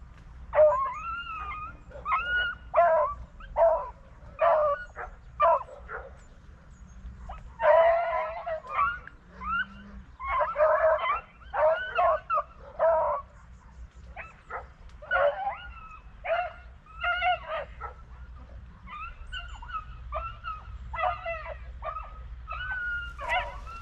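Beagles baying on a rabbit's trail: a string of short, high, bending yelps and bays in clusters with brief pauses, some cries overlapping.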